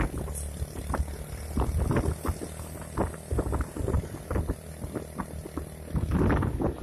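Vehicle engine running with a steady low hum, under irregular rattling knocks and rumble, with wind buffeting the microphone.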